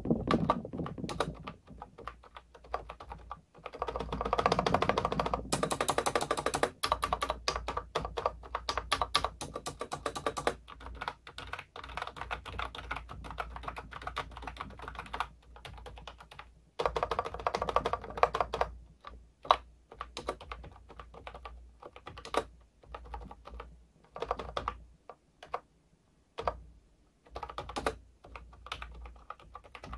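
Typing on a Sades V2020 wireless keyboard with round typewriter-style keycaps: a rapid clatter of key presses, densest from about four to ten seconds in and again around eighteen seconds, thinning to scattered keystrokes in the last third.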